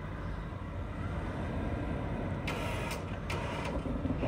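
Off-road SUV's engine running steadily under load as the high-centered vehicle is driven and winched free, with two short bursts of noise about two and a half and three and a half seconds in.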